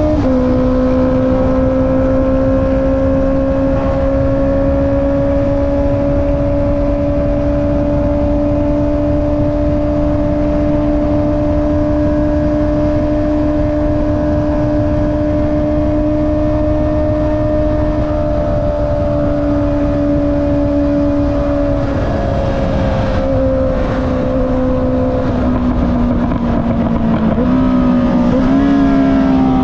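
Honda CB650R inline-four engine running through an Akrapovic exhaust at steady high revs while cruising, over a low rush of wind and road noise. The pitch dips slightly at the start, holds steady for a long stretch, drops about two-thirds of the way through, then wavers and climbs briefly near the end.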